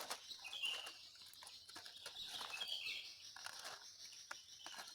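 Small birds chirping in the background: a few short, high chirps spaced out over the seconds, over a faint steady hiss.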